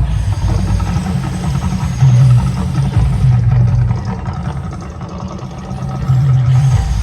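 Loud, deep rumble from the volcano show's eruption effects, swelling and easing over a few seconds.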